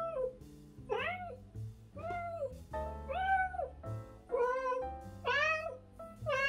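Siamese cat meowing over and over, one call about every second, each rising and then falling in pitch. The cat is demanding to be let through a closed door.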